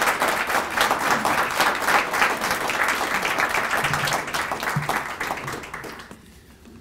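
Audience applauding, a dense steady clapping that fades away about six seconds in.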